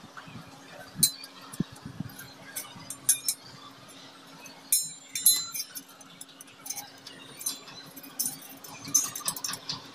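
Hand screwdriver driving a screw through a metal shelf bracket into the wall: irregular light metallic clicks and clinks of the tip on the screw head and bracket, a few louder ones around one, five and nine seconds in.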